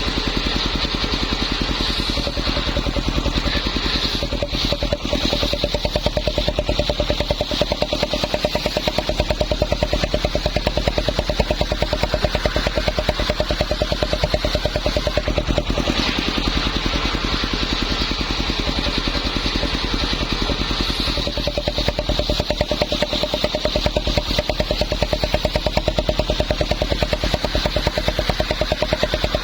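Homemade circular saw running steadily, a rapid even pulsing with a steady tone and a higher hiss from the blade.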